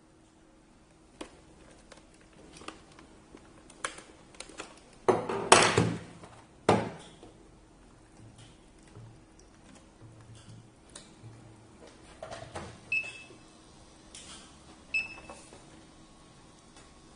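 Handling noise from a hard plastic dental LED lamp head: scattered clicks and knocks as it is fitted together and set down on a desk, loudest in a cluster about a third of the way through. Later come two short, high beeps a couple of seconds apart.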